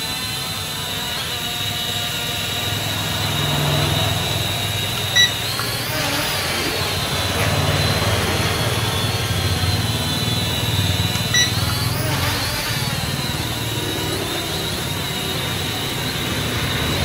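Small JY019 toy quadcopter hovering, its four propellers and motors giving a steady high whine whose pitch rises and falls now and then as it shifts height. Two short beeps sound, several seconds apart.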